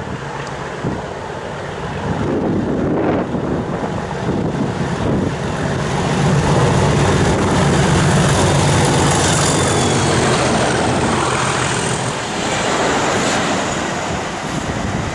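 Class 37 diesel locomotive with its English Electric V12 engine working hard as it passes with a train, its engine note loudest through the middle, then easing. A thin high whine sounds briefly around the middle.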